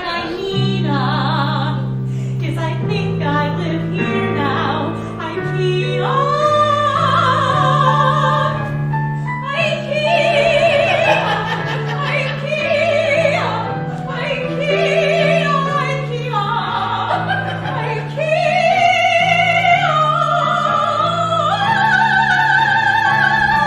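Operatic singing in a high voice with wide vibrato, long held notes over steady piano or keyboard chords.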